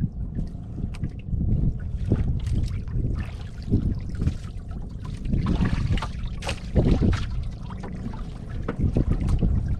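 Wind buffeting the microphone with a heavy low rumble, over water sloshing and splashing irregularly against a small boat's hull, busiest about halfway through.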